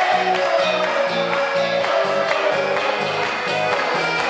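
Live rock band playing an upbeat song: electric guitars, bass and drums, with the bass notes marking a steady, even beat.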